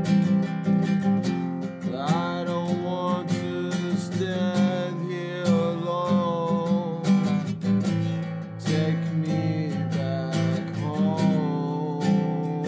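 An acoustic song with no vocals here: an acoustic guitar strums a steady rhythm under a melody line that slides between notes.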